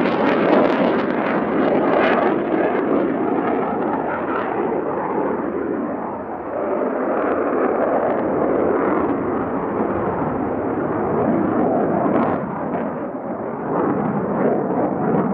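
Twin General Electric F404 turbofans of an F/A-18C Hornet jet fighter in flight, a loud rushing, crackling jet noise. The sound dulls over the first few seconds, dips briefly about six seconds in, then carries on as the jet draws away.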